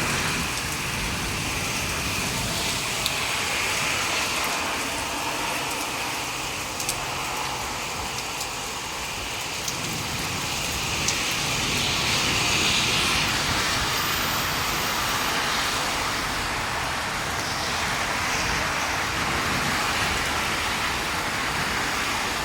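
Steady rain falling, an even hiss with a few brief sharp ticks of drops.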